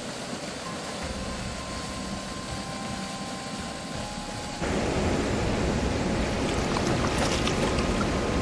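Rushing floodwater, a steady hiss of moving water that gets noticeably louder about halfway through.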